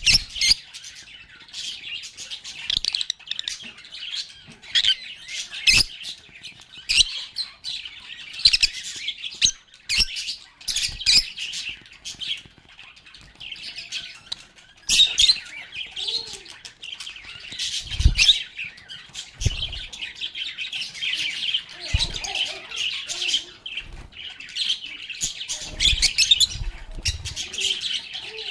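A group of lovebirds chirping and chattering steadily in fast, high, overlapping calls, with many sharp clicks. A few low thumps come in the second half.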